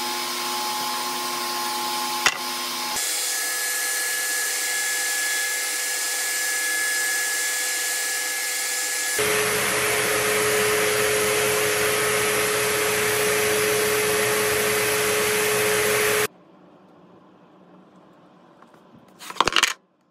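Festool random orbital sander running on a walnut end-grain cutting board, with its dust extractor drawing through the hose: a steady whining hiss that changes abruptly several times between edited stretches. Near the end it drops suddenly to a faint background, with a short burst of noise just before it cuts off.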